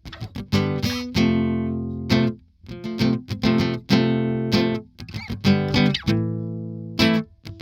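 Intro music: a run of notes and chords, each struck sharply and left to ring out and fade.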